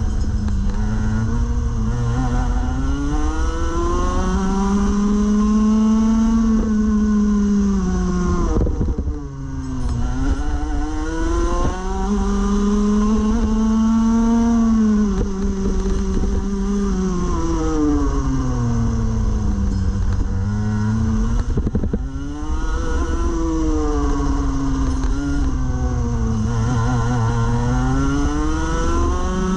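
Rotax Max Evo Senior 125cc two-stroke kart engine racing, heard from on board. Its pitch climbs as the kart accelerates and holds high down the straight. It drops sharply under braking about nine and twenty-two seconds in, then climbs again.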